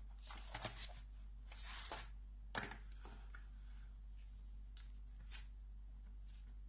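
Light handling noises: a few short rustles and clicks as a toy cat coin bank is picked up, moved and set down on a desk, the sharpest click about two and a half seconds in, then a couple of fainter ticks. A steady low hum runs underneath.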